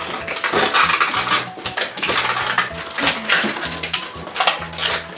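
Crinkling and rustling of a toy blind bag's foil packaging being torn open and handled, with many small clicks and crackles.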